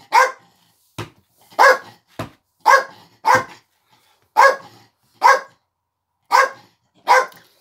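Dog barking repeatedly, about eight short single barks at roughly one a second, with two brief knocks about one and two seconds in.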